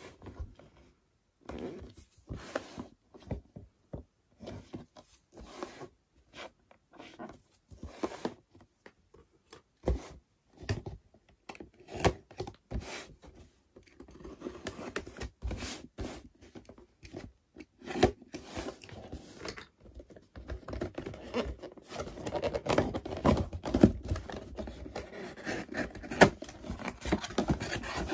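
Hands handling a cardboard box: separate taps and scrapes at first, then a box cutter scoring the box's top. In the second half the sound becomes denser, continuous rustling and scraping of cardboard and kraft paper as the inner packaging is slid out.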